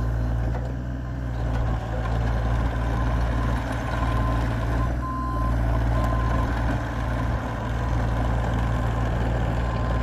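A Bobcat E35i mini excavator's Kubota three-cylinder diesel runs steadily while the machine travels on its rubber tracks. A high beep sounds on and off several times.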